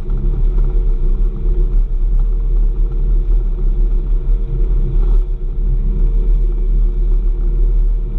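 Snowmobile-trail grooming vehicle's engine running steadily as it travels the trail, a continuous low drone with steady tones over it, heard from the cab.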